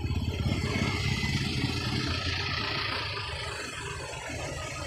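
Road traffic passing close by: engines and tyre noise as a minivan drives past, loudest in the first couple of seconds, then a small pickup truck passing near the end.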